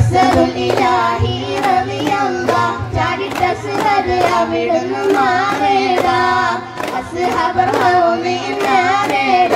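Daf muttu performance: children singing a Mappila song in chorus while beating daf frame drums in a steady rhythm, a little over two strikes a second.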